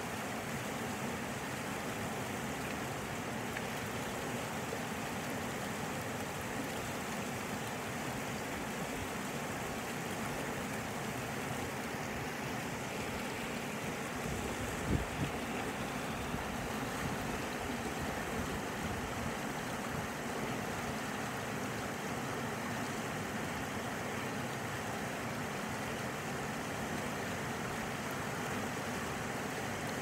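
River water rushing and splashing over and around rocks in a shallow riffle, a steady even rush. One brief low thump about halfway through.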